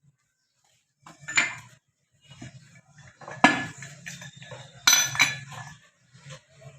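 Steel tools and parts clanking together, three sharp ringing clanks with smaller knocks between them, over a low hum.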